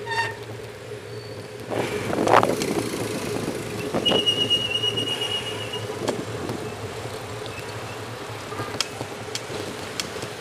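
Street traffic heard from a moving bicycle: a steady rumble of vehicle engines and tyres, swelling as vehicles pass about two and four seconds in. A short high beep comes right at the start, and a thin high squeal holds for about two seconds from about four seconds in.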